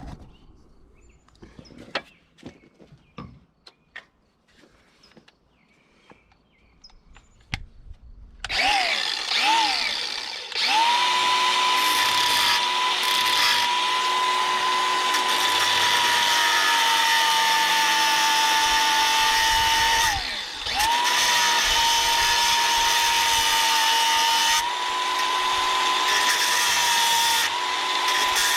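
A few light clicks of handling, then an angle grinder starts about eight seconds in, spins up to a steady high whine and cuts through the metal crimp of an air hose fitting. Its pitch sags under load, and it dips briefly about twenty seconds in before running up again.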